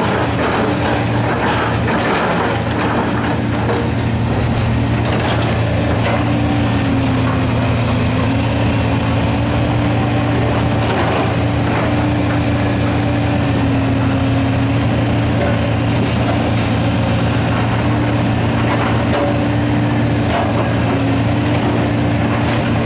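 John Deere 450D excavator's diesel engine running steadily under hydraulic load, its pitch wavering a little as the grapple boom swings and lifts, with scattered knocks and clatter of demolition debris.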